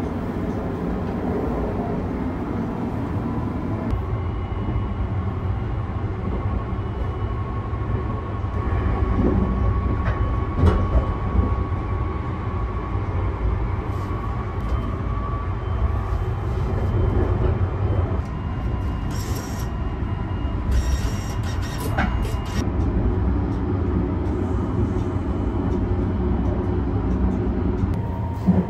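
Sunrise Seto sleeper train (285-series electric train) running, a steady low rumble heard from inside the carriage, with a faint steady tone for several seconds and a few sharp knocks and clicks about ten seconds in and again about twenty seconds in.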